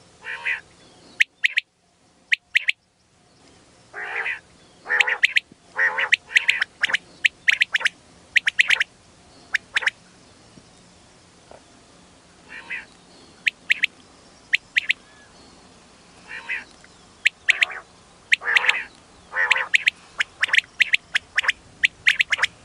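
Common quail (batair) calling: short, sharp notes, often in twos and threes, mixed with longer, lower nasal notes, repeated irregularly, with a brief silent gap about two seconds in.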